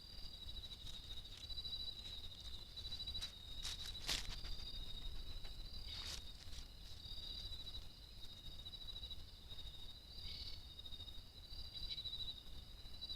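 Insects trilling without pause in a high, pulsing chorus, with two sharp clicks about four and six seconds in and a low rumble underneath.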